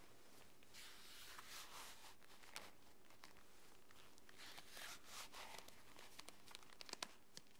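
Near silence: faint room tone with a few soft, scattered clicks and rustles.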